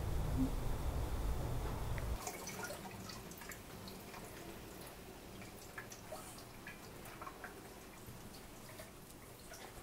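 A low room rumble cuts off about two seconds in. Then a faint kitchen tap runs into a sink while a jar is rinsed under it, with scattered small splashes and clicks.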